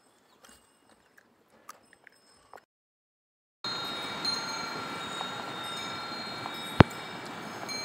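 Faint bell-like chiming with light clicks, cut off by a second of silence about two and a half seconds in. Then a steady rushing noise with ringing, chime-like tones over it, and a single sharp click near the end.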